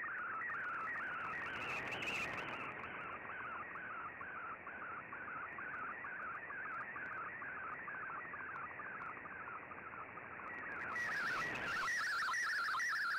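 Slow-scan television (SSTV) picture signal received on shortwave through an Icom IC-R8600: a warbling tone between about 1 and 2 kHz that repeats in short sweeps a few times a second, one per scan line, over band hiss. A brighter, higher hiss joins it near the end.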